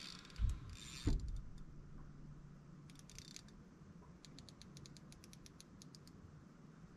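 Fishing reel clicking in a steady run of evenly spaced clicks, about six a second, during a long fight with a large carp. Two dull thumps come near the start.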